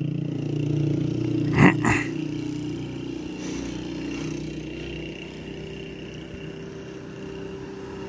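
A vehicle's engine running steadily on the move, with two sharp knocks close together a little under two seconds in.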